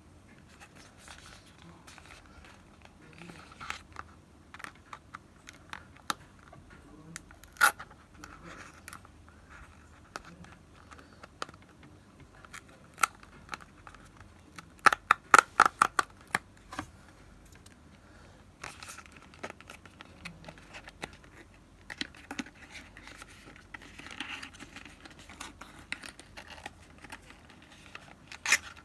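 Close-up unboxing handling of a Xiaomi pen's packaging: scratching, rustling and tearing, broken by scattered sharp clicks. About halfway through comes a quick run of about ten sharp clicks, the loudest sounds here.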